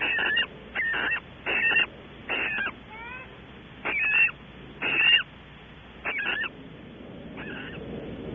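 Barn owls calling in the nest cavity: a series of short, harsh calls about a second apart, the last one fainter, with a few brief rising chirps about three seconds in.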